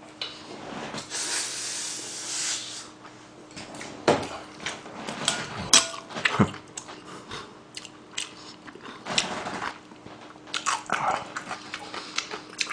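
Close-miked eating sounds: chewing, lip smacks and wet mouth clicks, with a longer noisy slurp-like stretch about one to three seconds in. A faint steady hum sits underneath.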